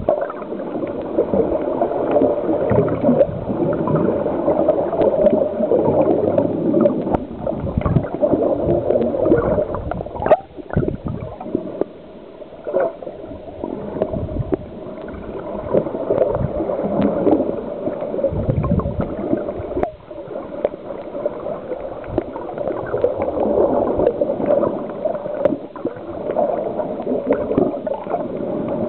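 Muffled underwater gurgling and bubbling that swells and fades, with scattered clicks.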